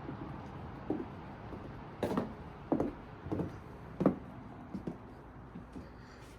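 Footsteps on wooden boards: about six dull thumps a little under a second apart.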